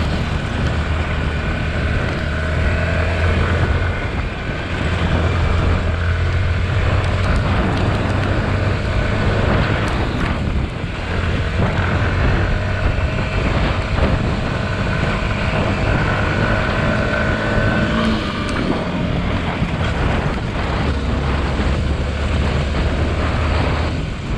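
Yamaha WR155R's single-cylinder engine running while riding off-road, its pitch rising and falling with the throttle, with wind on the microphone and a few sharp knocks scattered through.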